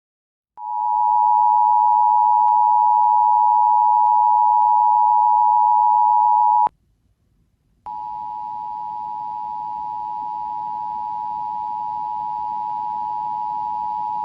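Emergency Alert System two-tone attention signal: two steady tones near 1 kHz sounding together. It plays twice, first loud and clean for about six seconds, then, after a second's silence, a quieter repeat with hiss behind it.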